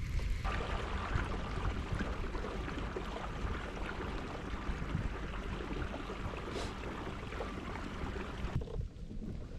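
Steady sloshing of water against the hull of a Hobie Pro Angler 14 fishing kayak, with wind on the microphone.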